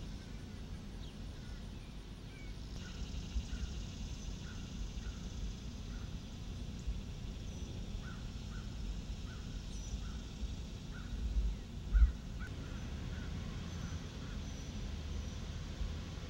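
Outdoor ambience with a steady low rumble and a bird giving a run of short repeated calls, alongside fainter higher chirps. A single thump stands out about twelve seconds in.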